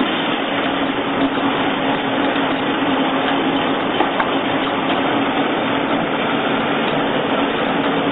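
Corn peeling and grinding machine running steadily: a constant mechanical drone with a steady low hum that never changes.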